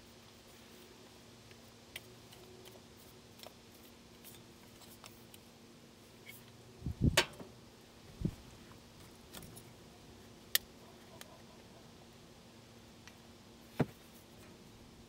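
Scattered light clicks and clinks of small hard objects being handled, with heavier knocks about seven seconds in and again a second later, and single sharp clicks near the middle and near the end.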